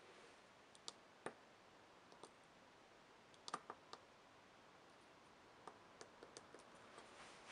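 Faint clicks of the small tactile push buttons on a BBC micro:bit board being pressed: scattered single clicks, then a quick run of three or four about three and a half seconds in, and a few lighter ones near the end.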